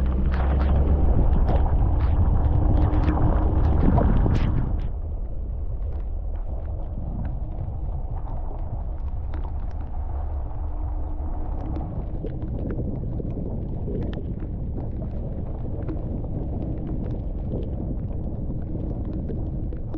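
Vehicle driving slowly on a wet gravel road: steady low tyre and engine rumble with scattered clicks of gravel under the tyres. Louder for the first five seconds, then quieter and even.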